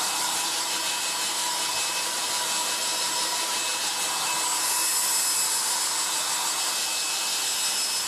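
Black & Decker Stowaway 1000 travel hairdryer running steadily: a constant rush of blown air with a faint steady motor whine, swelling slightly about five seconds in.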